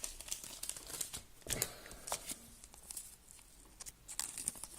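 Quiet, scattered crinkles and scrapes of packaging being handled as a promo card is worked free of a trading-card collection box, with a sharper crackle about a second and a half in.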